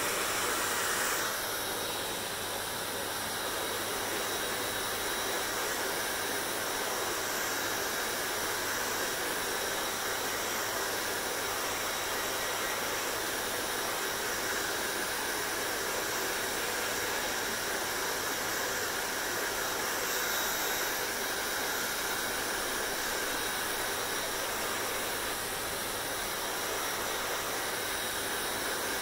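Hair dryer running steadily, an even rushing hiss with a faint low hum under it; the hiss shifts slightly about a second in, then holds steady.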